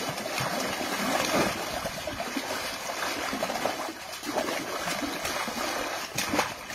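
A dog splashing and pawing at the water in an inflatable paddling pool: a continuous run of irregular splashes and sloshing.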